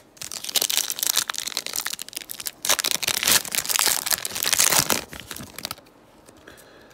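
A Panini Prizm basketball card pack's wrapper being crinkled and torn open by hand: a dense crackle that stops about a second before the end.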